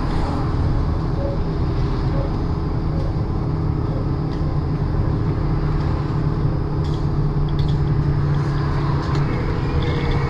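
Cabin noise of a MAZ-203T70 trolleybus on the move: a steady low rumble of tyres and running gear with a faint, even electric hum underneath.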